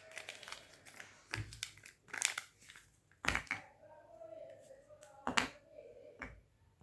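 Product packaging being torn open and crinkled by hand, with several sharp rips, the loudest about a third and three quarters of the way through.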